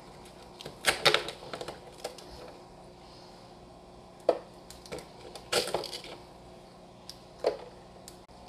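Irregular clicks and light clatters of small hard objects being handled, in short clusters with pauses between them, the sharpest about a second in and again about four seconds in.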